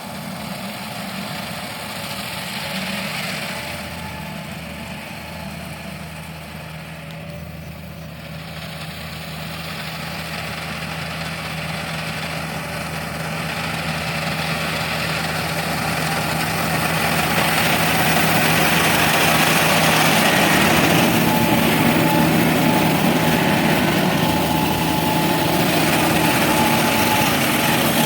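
Yanmar combine harvester's diesel engine running steadily with a constant hum as the machine drives, growing louder through the middle and then holding steady.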